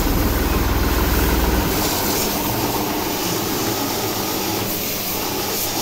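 Massey Ferguson 9500 Smart tractor's diesel engine idling with a steady low hum, mixed with the hiss of a hose spraying the tractor. After about two seconds the deep engine hum drops away, leaving mostly the spray hiss over a fainter engine.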